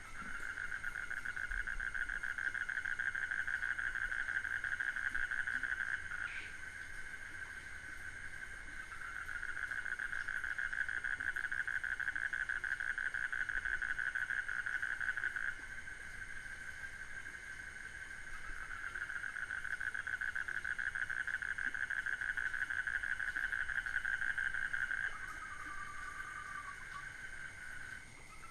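Night-time jungle animal chorus: a fast pulsing trill repeats in long bouts of about six seconds, over a steady high-pitched insect drone. A brief rising call cuts in about six seconds in.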